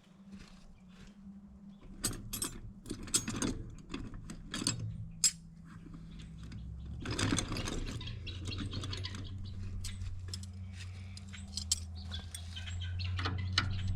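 Metal hand tools clinking and knocking, as when sockets and wrenches are handled to loosen bolts: a string of sharp clinks between about two and five seconds in, then scattered lighter clicks, over a low steady hum.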